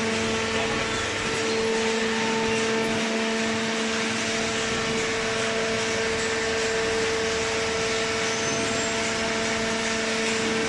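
Hydraulic cardboard baler running: the electric motor and hydraulic pump give a steady hum with a constant low tone and its overtone over an even hiss.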